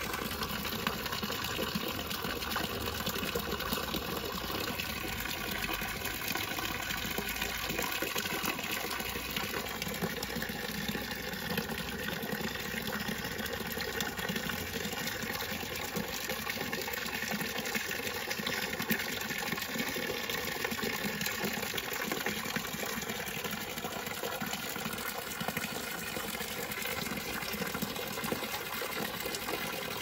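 Water running in a steady, unbroken rush at a fish pond.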